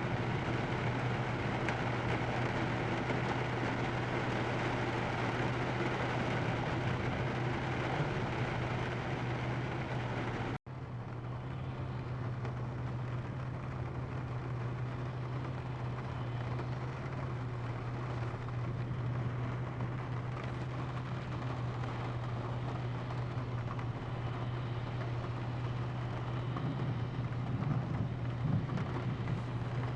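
Steady low hum of a car engine running, under an even hiss of rain falling on the car. The sound drops out briefly about ten seconds in, and afterwards the hiss is softer.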